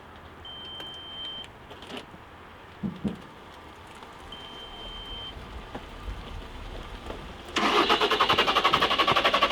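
An engine starts abruptly late on and keeps running with a fast, even pulsing; before that, only faint background with a couple of soft knocks.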